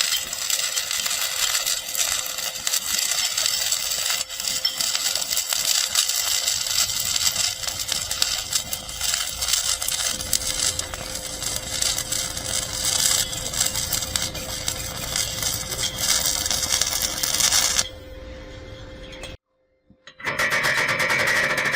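Stick arc welding with an E6013 electrode: a steady, dense crackle and sizzle from the arc. It stops about 18 seconds in, a brief silence follows, and music starts near the end.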